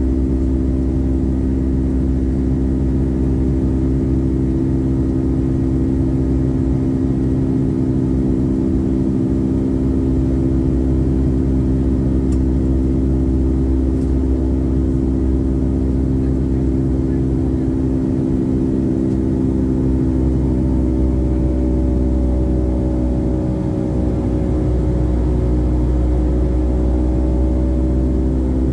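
Boeing 757-200 jet engines and airflow heard from inside the passenger cabin: a loud, steady drone built of several low tones. About twenty seconds in, a few higher tones come in and slide slightly lower in pitch.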